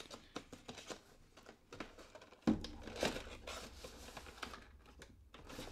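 Cardboard action-figure box being opened by hand: small clicks and rustles as the flaps are worked loose, then a louder scraping of cardboard as the inner packaging slides out, about halfway through.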